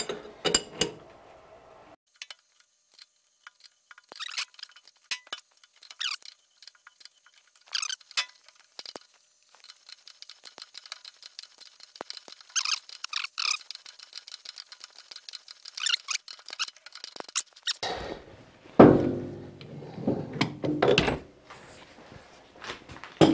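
A hand threading tap cutting threads in a metal sleeve held in a lathe chuck, turned a little at a time: repeated squeaks, creaks and small clicks. Near the end there is a louder, fuller clatter as the tap wrench is handled.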